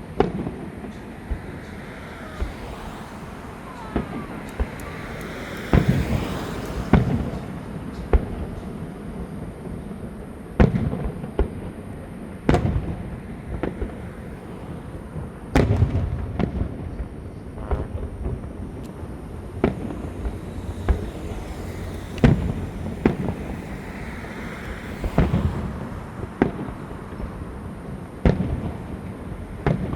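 Fireworks going off: sharp bangs at irregular intervals, some single and some in quick clusters, each trailing a low rumbling echo, with spells of hissing between them.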